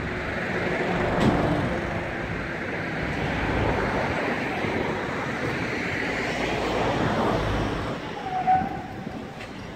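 Street traffic noise: cars passing on the road, one swelling up and then fading away. A brief short tone sounds about eight and a half seconds in.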